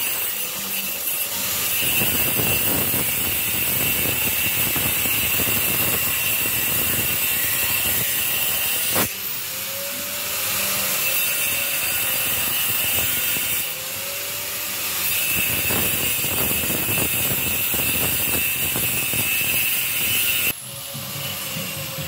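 Handheld angle grinder with its disc ground into a concrete wall: a steady high whine over harsh grinding noise. The load eases briefly twice, about nine and fourteen seconds in, and the grinder cuts off shortly before the end.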